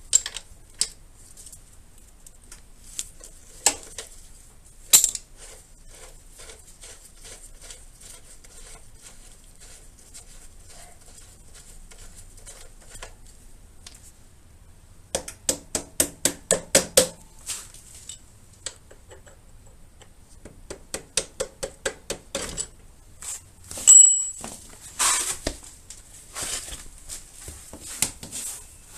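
Hand tools on the motorcycle's rear axle nut: sharp metal clinks and runs of quick, evenly spaced clicks, about five a second, like a socket ratchet. There is a brief high squeak near the end.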